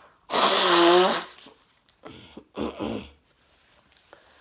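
A person blowing her nose hard into a tissue: one long, loud blow with a pitched honk near the start, then two shorter blows about a second later. Her nose is congested from a heavy cold.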